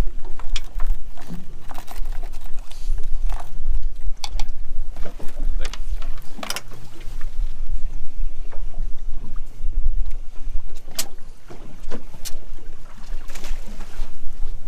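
Ambient noise aboard a fishing boat: a steady low rumble and hum, with scattered sharp knocks and clicks from handling on the boat.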